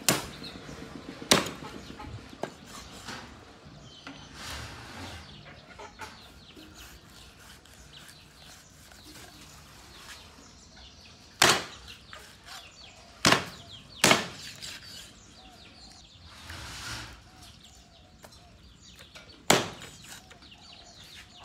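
Heavy cleaver chopping raw meat and bone on a wooden stump chopping block: about six sharp separate chops, two near the start, three close together in the middle and one near the end, with quieter handling and cutting sounds between.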